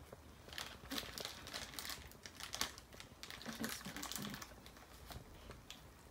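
Plastic snack bag crinkling in short, irregular crackles as it is handled and held up to the nose.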